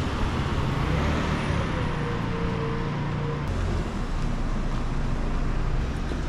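Road traffic on a town street: cars passing, engines and tyres making a steady wash of noise with a low rumble.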